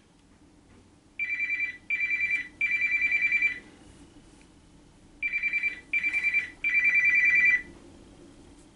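Mobile phone ringing with a trilling ringtone for an incoming call: two rings, each of three rapid-trill bursts with the last burst longest, the second ring starting about a second and a half after the first ends.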